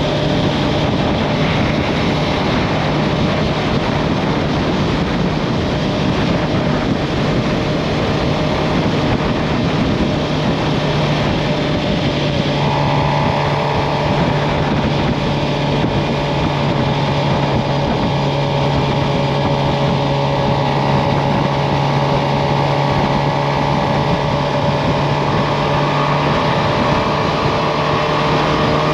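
2023 Suzuki GSX-R 750's inline-four engine running at a steady pace while riding, with wind noise over it. About twelve seconds in, a steady higher engine hum joins the low drone and holds.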